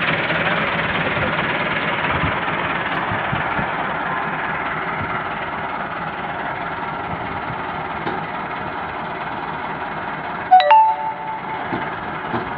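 Massey Ferguson 385 tractor's diesel engine running steadily with the loaded sugarcane trolley hitched. About ten and a half seconds in, a brief sharp tone with a stepped pitch sounds once.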